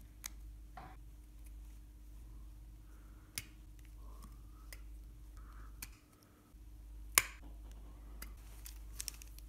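Sparse sharp clicks and taps of pliers on small wooden connecting rods and steel-wire pins as the parts are fitted onto a wooden crankshaft, the loudest click about seven seconds in, over a low steady hum.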